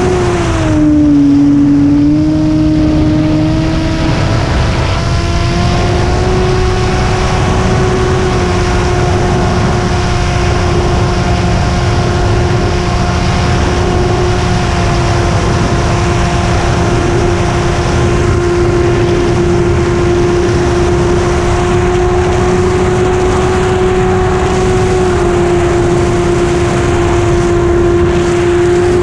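RC model airplane's engine and propeller running at a steady high pitch, heard from on board the plane over a dense low rush. The pitch drops briefly about a second in, then settles and holds, stepping down slightly near the end.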